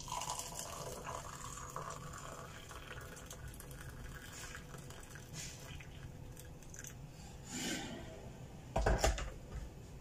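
Water pouring from a Philips electric kettle into a cup, trailing off into drips; near the end a couple of knocks, the second one loud.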